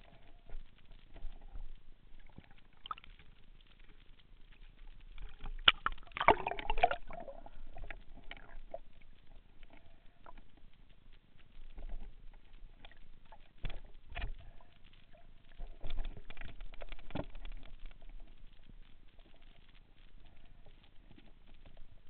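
Underwater handling noise picked up by a speargun-mounted camera: scattered clicks and knocks, with a louder warbling burst about six seconds in.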